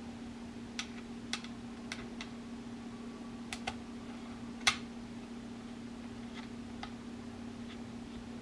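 About ten scattered light clicks and taps of parts and tool as an M1 Garand's gas plug is worked loose with the wrench, the sharpest a little past halfway, over a steady low hum.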